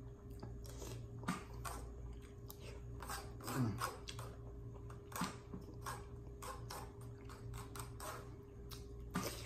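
A person eating by hand and chewing, with many small irregular mouth clicks and smacks, a few louder ones, over a steady low hum.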